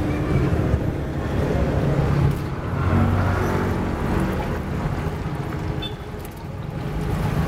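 Motorbike and road traffic running past as a steady low rumble, with sempolan skewers sizzling as they are dipped into a wok of hot frying oil.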